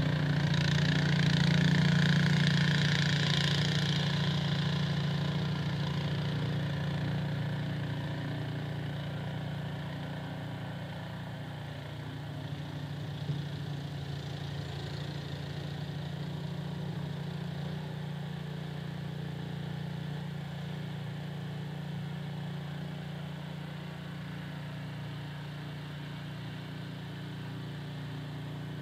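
Small engine running steadily, louder over the first few seconds with a hiss on top, then settling to an even hum.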